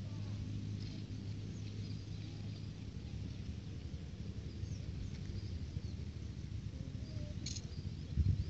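Outdoor ambience: scattered faint bird chirps over a steady low rumble, with one brief sharp chirp or click near the end.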